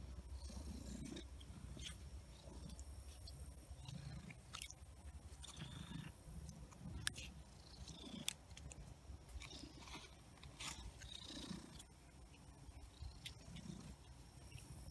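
Domestic cat purring close to the microphone, swelling and easing in a regular rhythm, with two sharp clicks midway.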